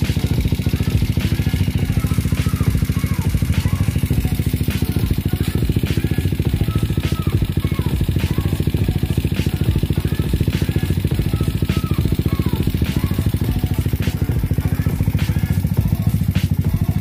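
Yamaha Mio Sporty scooter's single-cylinder four-stroke engine, bored out to about 160cc with a 59 mm cylinder, idling steadily.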